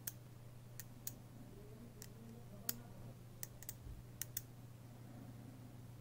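Small neodymium magnet balls clicking against each other as fingers press and shift them on a sphere built of magnet balls: about ten sharp, irregular clicks, the loudest about halfway, stopping after about four seconds.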